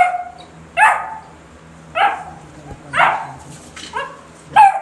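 Basset hound puppy barking: short, high barks, about six of them at roughly one a second.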